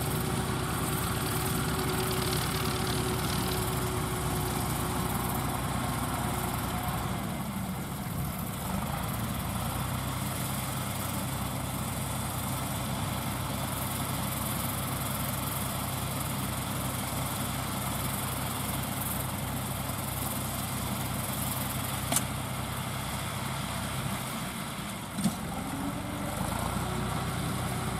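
Deutz D5006 tractor's air-cooled three-cylinder diesel running steadily with its bonnet off, driving a round straw baler. The engine note shifts about seven seconds in. Two sharp clacks come in the last few seconds.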